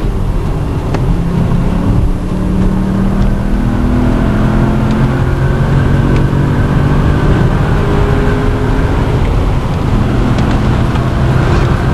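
Volkswagen car engine heard from inside the cabin, accelerating along the road: its pitch climbs, drops back at gear changes and climbs again, over steady road noise.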